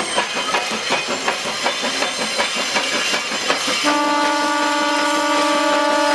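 JS-class 2-8-2 steam locomotive working a freight train, its exhaust beating in a quick, even rhythm. About four seconds in its steam whistle sounds: one long, steady blast that holds on.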